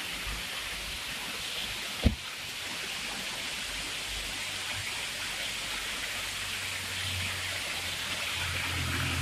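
Steady rushing noise of the Amboli waterfall. A single sharp knock comes about two seconds in, and a low engine hum grows louder over the last few seconds.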